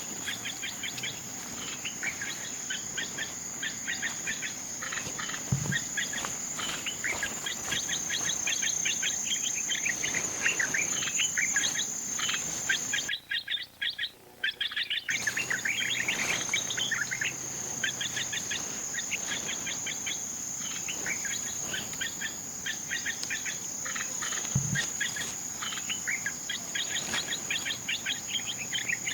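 Forest ambience: a steady, high-pitched insect drone under many rapid chirps from birds and insects. The sound cuts out briefly about halfway through, then resumes.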